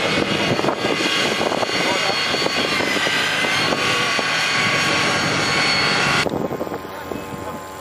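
An off-road 4x4's engine running hard under load, a dense drone with voices mixed in; about six seconds in the sound cuts abruptly to a quieter, thinner engine noise.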